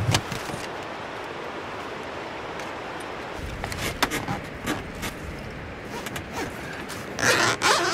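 Canoe outfitting gear being handled: a sharp buckle click at the start, then scattered small knocks and nylon rustles as straps and the spray deck are worked, with a louder rustling scrape near the end, over a steady outdoor hiss.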